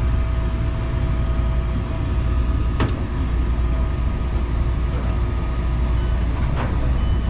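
Taichung MRT train heard from inside the car: a steady low running rumble with a faint steady whine over it, and a sharp click about three seconds in and another near the end.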